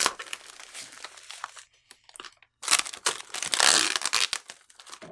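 Clear plastic film and kraft paper wrapping being pulled off a parcel: crackling, crinkling rustles with a short pause, then a longer, louder tearing crinkle from about halfway through.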